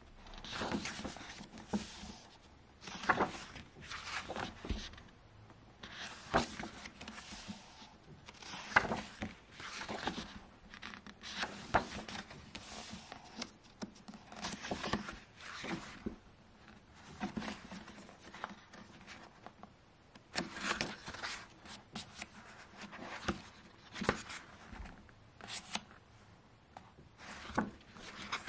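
Paper pages of a printed art book being turned and handled by hand: irregular rustles and crackles of paper every second or two, with pages riffled quickly near the end.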